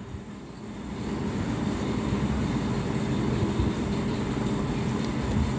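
Steady mechanical rumble that fades in over the first second or so and then holds at an even level.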